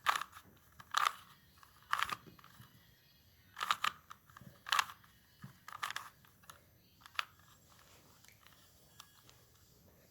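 A plastic Rubik's Cube being twisted by hand: short clacking rattles, one with each turn of a face, about one a second, stopping about seven seconds in.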